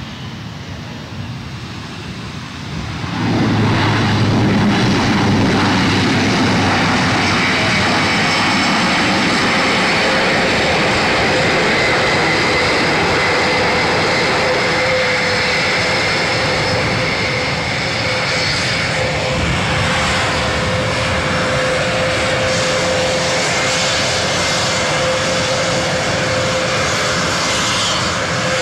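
Airbus A400M's four turboprop engines with their eight-bladed propellers running on landing: a loud, steady drone with a whine on top that swells sharply about three seconds in and holds as the aircraft rolls out on the runway.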